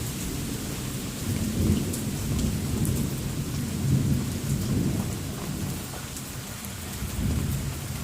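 Thunder rumbling low over steady rain. The rumble swells about a second and a half in, eases after about five seconds, and swells again near the end.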